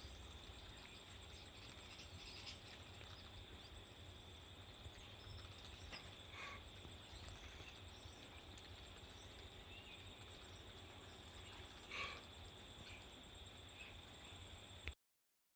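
Faint outdoor ambience: a steady high-pitched insect drone over a low rumble, with a few short bird chirps scattered through. The sound cuts off suddenly near the end.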